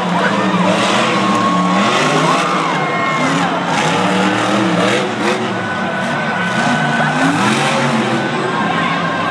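Monster truck's supercharged V8 revving hard, its pitch climbing and dropping again and again as the truck accelerates and backs off, over the steady noise of a large stadium crowd.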